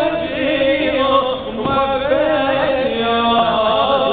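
Male voice chanting an Arabic latmiyah, a Shia mourning lament for Imam Hussain, in a melody that rises and falls.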